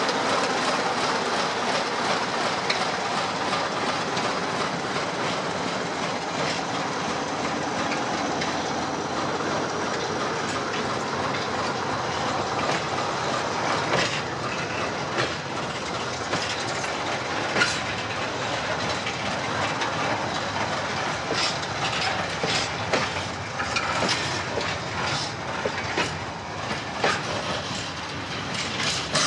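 Freight train of covered hopper wagons rolling past with a steady rumble of wheels on rail and clacks over the rail joints. The clacks grow sharper and more frequent in the second half. In the first few seconds the Electroputere LDE2100 diesel locomotive's engine can still be heard moving away.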